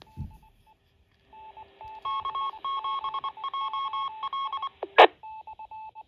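A TIDRadio TD-H6 handheld transceiver's speaker plays a ham repeater's reply after being keyed: a run of short electronic beep tones switching on and off, faint at first and louder from about two seconds in. A short burst of static comes about five seconds in, followed by a few fainter beeps.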